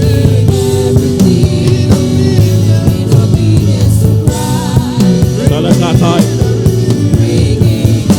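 Worship music with a drum kit beating steadily under long held instrument notes, with a voice rising and wavering briefly about two thirds of the way through.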